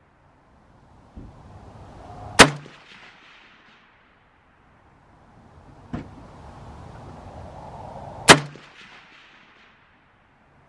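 Two loud rifle shots about six seconds apart, each followed by a short echo, with a fainter shot a second or so before each.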